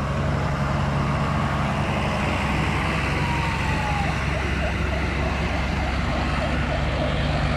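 Diesel engines of farm tractors, a Renault and then a Claas, running steadily as a line of them drives slowly past close by.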